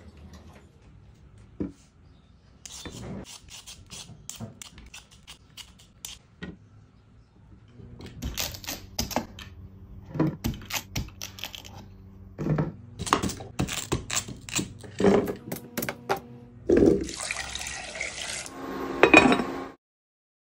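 Kitchen knife chopping a sweet potato on a wooden cutting board, a run of sharp irregular taps. Near the end there is a second or so of running water, then clatter from a pot.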